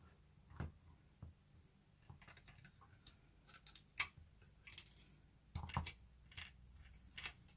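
Small, irregular clicks, taps and light rattles of miniature dollhouse kitchen pieces being handled, the sharpest tap about halfway through.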